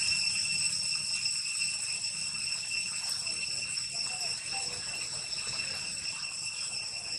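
Steady, shrill insect drone holding one high pitch without a break.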